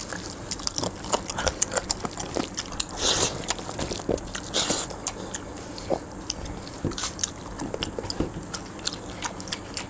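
Close-up eating by hand: chewing and lip smacks, wet squishing of fingers working rice and curry, and many small sharp clicks. Two short hissing rushes come a few seconds in.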